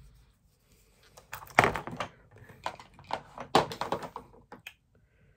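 Plastic makeup tubes and cases clicking and knocking together as they are handled and picked through: a run of light clicks with two louder knocks, about a second and a half and three and a half seconds in.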